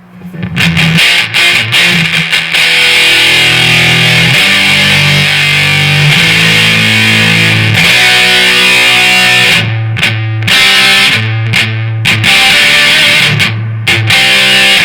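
Distorted electric guitar through a Marshall DSL 40C tube amp playing a heavy riff: held chords at first, then short chugging stabs in the second half, each stop cutting off abruptly to silence, as a noise gate pedal shuts out the amp's hiss between notes.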